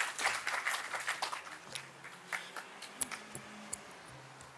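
Audience applause thinning out to a few scattered claps, then a quiet room with a low hum and a few faint knocks near the end.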